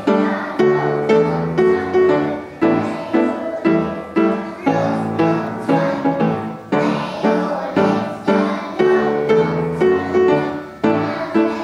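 Piano music with a steady beat, each note struck sharply and fading.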